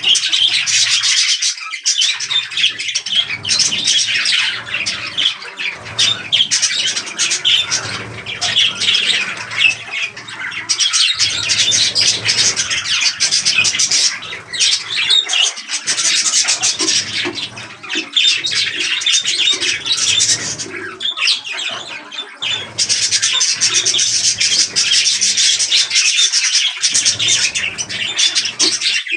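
A flock of budgerigars chattering continuously, many quick chirps and squawks overlapping.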